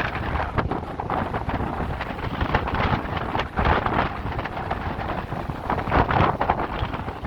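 Strong gusting wind buffeting the microphone: a loud rumbling roar that swells and eases with each gust.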